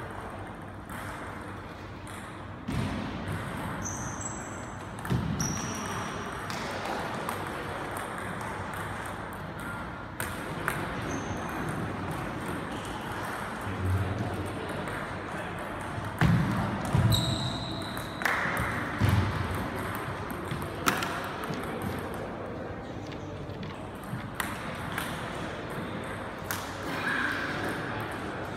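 Table tennis ball clicking off bats and bouncing on the table in rallies and between points, with a few short squeaks of shoes on the floor and some dull thuds. The hall's echo is on the sound.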